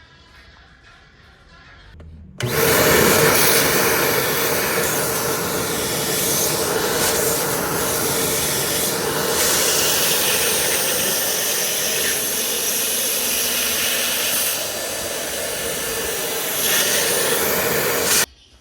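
Deerma DX700S vacuum cleaner running at full suction: it switches on suddenly about two seconds in with a steady motor hum and rushing air, and cuts off abruptly near the end.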